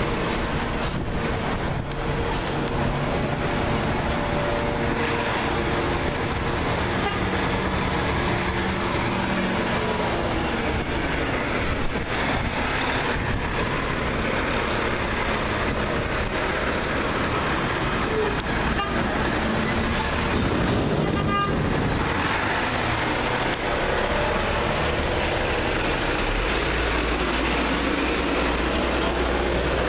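Garbage trucks running close by at low speed, one of them a CNG-fuelled packer truck, with steady engine noise and a deep low rumble as a tandem-axle truck rolls past near the end.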